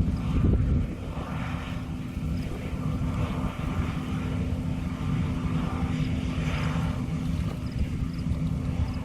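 John Deere combine harvester running steadily in the field, a constant low engine drone with a steady hum.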